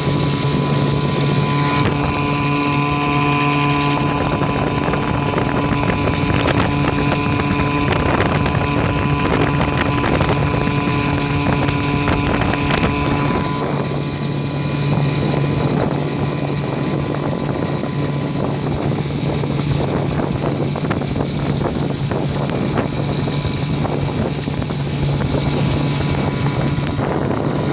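1956 Johnson 5.5 hp two-stroke outboard motor running steadily at speed, pushing a small jon boat.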